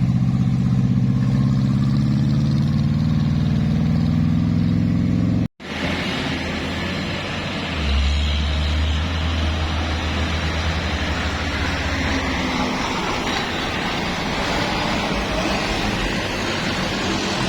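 Tour bus engine running steadily as the bus takes the bend. About five and a half seconds in the sound cuts off abruptly. It returns as passing traffic with engine rumble and road noise, and a deep hum swells up between about eight and twelve seconds in.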